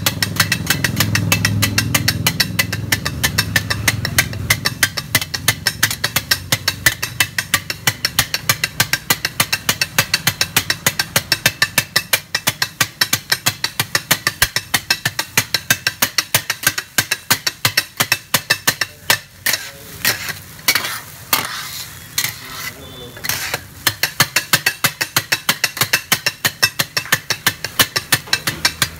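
Two steel blades chopping kothu parotta on a flat iron griddle: fast, rhythmic metallic clanging at about five strikes a second. The beat falters briefly about twenty seconds in, then picks up again.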